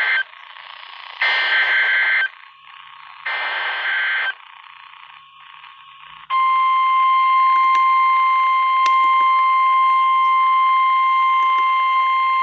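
Emergency Alert System activation on NOAA Weather Radio. Two one-second bursts of SAME digital header data, with radio static between, are followed about six seconds in by the steady 1050 Hz NOAA Weather Radio warning alert tone, which comes on and holds. The bursts are the coded header announcing a new warning, and the tone is the alert that precedes the spoken message.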